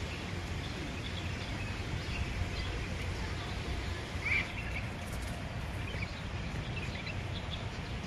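Outdoor park ambience: a steady low rumble with scattered small bird chirps, one louder chirp about four seconds in.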